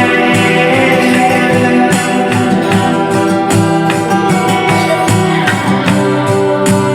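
Music with guitar and a steady percussion beat.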